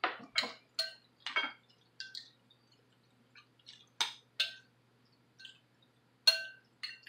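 Metal spoon clinking and scraping against a glass bowl while scooping up goulash: about a dozen short, ringing clinks, the loudest a little past six seconds in.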